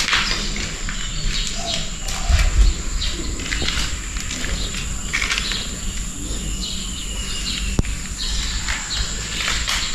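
Birds chirping in short repeated calls over a steady high-pitched insect drone, with a low thump about two and a half seconds in.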